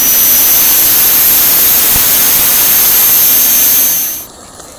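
Small Jensen steam turbine on a model live-steam vehicle running at speed: a loud rush of escaping steam with a steady high-pitched whine that creeps slightly upward in pitch, cutting off suddenly about four seconds in.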